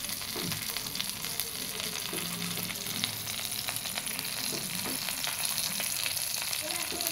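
Milkfish (bangus) frying in oil in a wok: a dense, steady sizzle of fine crackles.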